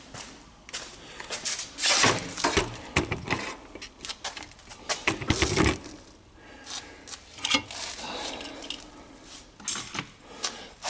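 Irregular clanks and clicks of metal tools being handled on a steel drill-press table, including a locking C-clamp being moved off it.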